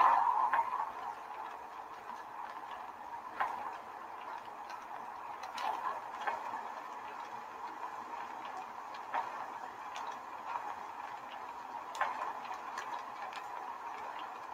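A large sheet of a sound installation billowing in blown air, rustling steadily with sharp snaps every one to three seconds. It is louder at first and settles within the first second.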